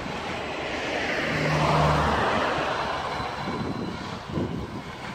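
A car passing the bicycle: its engine and tyre noise swells to a peak about two seconds in, then fades as it pulls away ahead.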